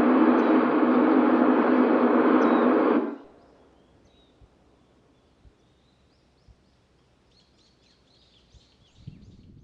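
Municipal disaster-prevention radio loudspeakers (TOA reflex horns) hissing loudly with analogue radio noise as the noon chime ends, then cutting off suddenly about three seconds in. Afterwards only faint outdoor background with a few thin bird chirps near the end.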